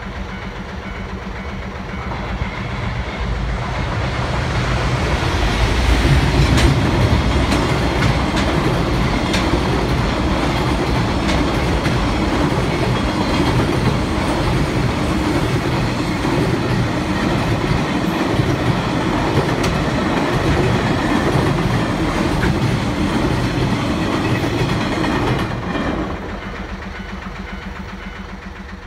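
Container freight train hauled by an EF510-500 series electric locomotive (EF510-509) passing close by. It grows louder for the first several seconds as the locomotive comes up. Then the long string of container wagons runs past, clacking over the rail joints, and the sound drops off suddenly near the end as the last wagon goes by.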